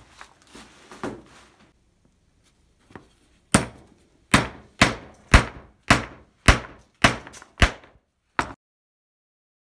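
Hammer striking a chisel about ten times, roughly two blows a second, driving the chisel into a small glued wooden block to split the glue joint apart. Faint handling of wooden pieces comes before the blows, which stop shortly before the end.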